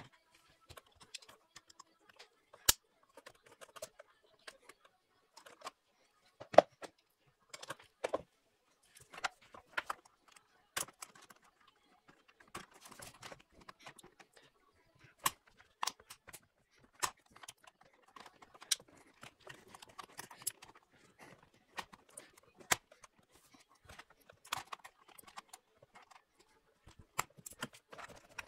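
Irregular sharp metallic clicks and clinks of hand tools and small parts being handled, a few of them loud knocks, with quieter rattling in between.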